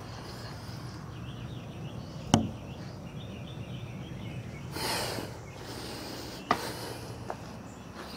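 Quiet outdoor background with faint high chirping, broken by two sharp knocks about four seconds apart, the first the louder, and a brief rustle between them.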